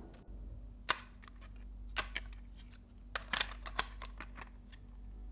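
A plastic film camera being handled: a string of sharp clicks and small rattles, about seven in all, as its body is gripped and its back cover worked open.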